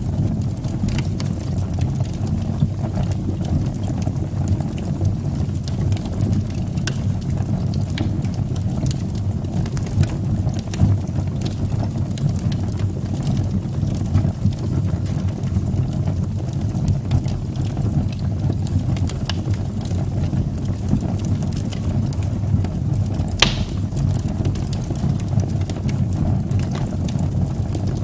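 Wood fire burning in a fireplace: a steady low rumble of flames with frequent small crackles, and one sharper pop about 23 seconds in.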